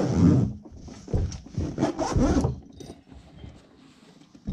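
Zipper on a black hard-shell carrying case being drawn shut in several rasping pulls over the first two and a half seconds, then quieter handling as the case is moved.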